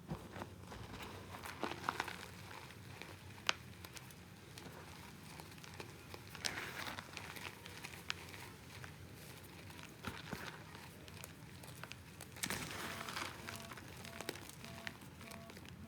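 Balls of reformed gym chalk being crushed, crunching and crumbling in separate bursts every few seconds, with a few sharp single cracks between them.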